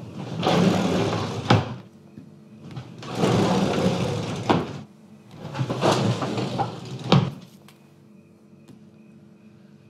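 Unexplained kitchen noises: three separate noisy sounds, each lasting about a second and ending in a sharp knock, then quiet.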